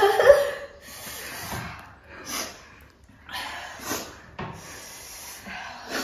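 A woman's short pained moan, then a string of loud hissing breaths drawn in and pushed out through the mouth: the heavy breathing of people whose mouths are burning from an extremely spicy chip.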